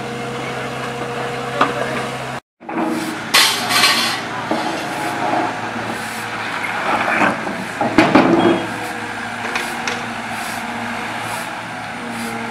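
Liebherr wheeled excavator's diesel engine running steadily. After a brief cut, the engine continues under clattering rubble and shovels scraping across paving as tornado debris is cleared, loudest in two spells of crashing and rattling.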